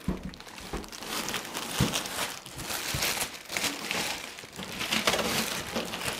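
A thin clear plastic bag crinkling and rustling in bursts as it is pulled off a PC case, with a couple of low knocks partway through.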